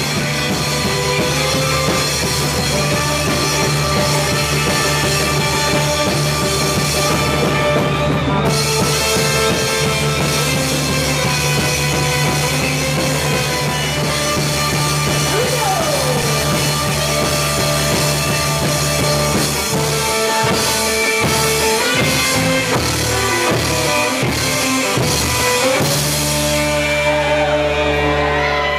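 A rock band playing live: electric guitar over electric bass and a drum kit. The cymbals drop away near the end.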